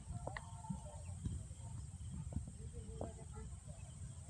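Faint outdoor ambience: a steady low rumble of wind on the microphone, with scattered short, faint chirps and a few small clicks.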